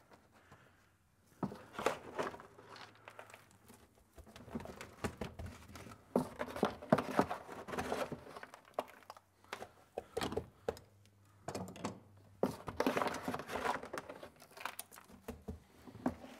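Crushed dry ice being scooped out of a plastic ice chest and dumped and patted onto a car's floor pan: irregular crunching and crinkling, coming in several spells with short pauses between.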